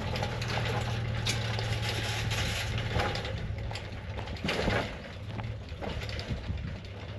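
A vehicle engine running with a steady low hum, with irregular rattling and crunching over it, as of a load riding over rough ground. The engine hum weakens about five seconds in.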